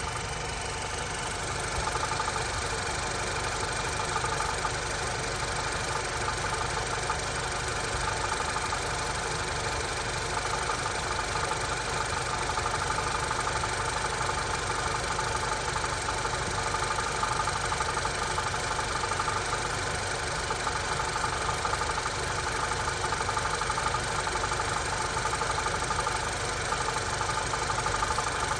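2019 Honda Stepwgn RP4's 1.5-litre turbo four-cylinder engine idling steadily with an extraneous knock that has newly appeared at idle.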